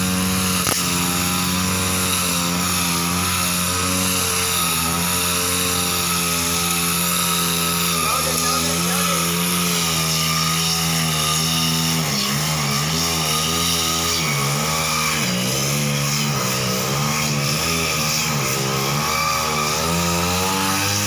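Backpack brush cutter's small petrol engine running fast while cutting grass. Its pitch is steady at first, then about halfway through it dips and recovers again and again as the cutter bites into the grass.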